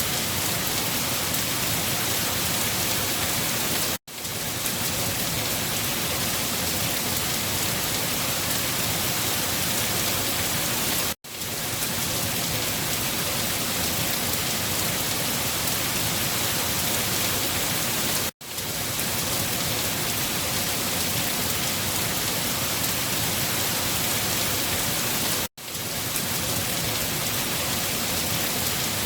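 Steady, even rain. Four times, about every seven seconds, the sound drops out for an instant and fades back in: the seam of a looped recording.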